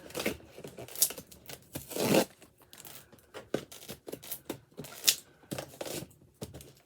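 A small product box being forced open by hand: an irregular run of tearing and rustling noises, with longer tears about two and five seconds in.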